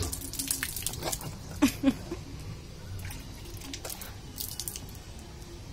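Water splashing and spattering onto a wet concrete floor in a string of short splashes and drips. Two sharper, louder splashes come close together about a second and a half in.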